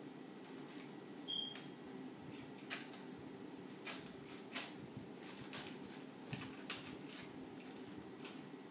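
Irregular light clicks and taps from playing kittens' claws and paws on a tiled floor, over a steady low room hum.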